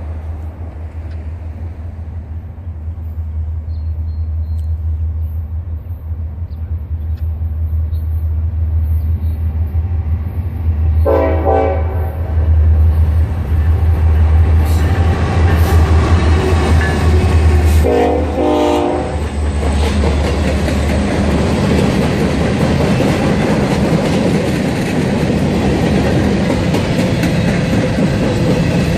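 Norfolk Southern freight train approaching with a low, steady diesel rumble that grows louder. The locomotive's horn sounds twice, about seven seconds apart. The train then passes close by with loud wheel-on-rail clatter.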